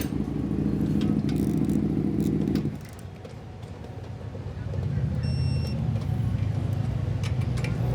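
A motor running with a steady hum. It drops away about three seconds in and comes back at a lower pitch about a second and a half later.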